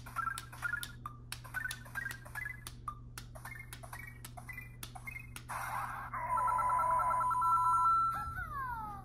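LEGO Super Mario interactive Peach figure playing its electronic sound effects as it is pressed down onto a Bowser piece. Plastic clicks come with short beeping notes that step upward in pitch. After a brief burst there is a longer warbling tone, then a falling whistle near the end.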